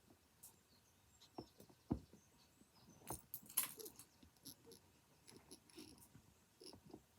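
Faint clicks and light rattling of small plastic Lego pieces being handled and sorted, with a few sharper clicks about two seconds and three and a half seconds in.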